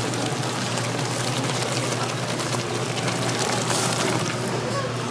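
Stall cooking sounds: a steady liquid crackle and sizzle with many fine ticks, over a constant low hum.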